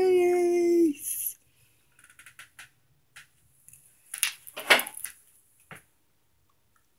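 A long drawn-out spoken "peace", then a few faint clicks and, about four to five seconds in, a short clatter of hard knocks and rattles with one last tick after it. It is the noise of something in the room shifting, which the boy takes for an object moving on its own.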